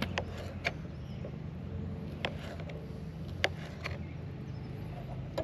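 A handful of short, sharp clicks and taps at uneven intervals, from cooking utensils on a camp pot, over a steady low hum.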